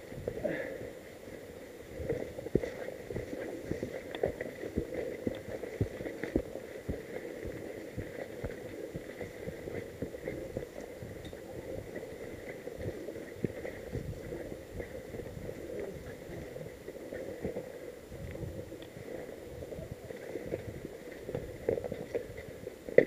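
A mountain bike moving along a dry dirt trail covered in fallen leaves. Tyres crunch through leaves and dirt, and the bike gives frequent irregular rattles and knocks over a steady rustle.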